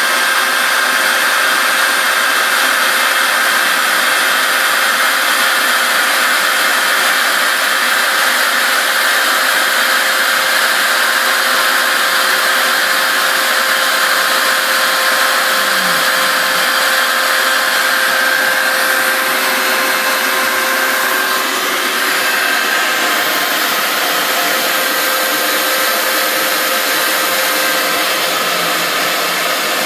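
Router spindle running at high speed while its bit cuts pink foam board, together with a shop vac drawing the dust off through a hose at the bit: a loud, steady whine and rush.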